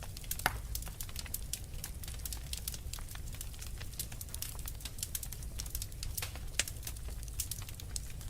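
Wood fire crackling in a fireplace: a dense, irregular stream of sharp snaps and pops over a steady low rumble.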